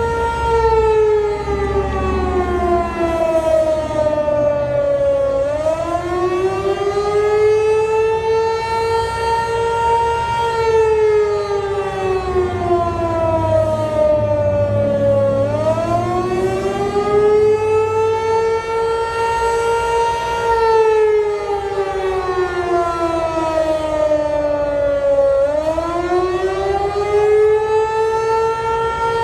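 Outdoor tornado warning siren sounding a wail, rich in overtones. Its pitch falls slowly over about five seconds, then swings back up and levels off, cycling roughly every ten seconds, three times over.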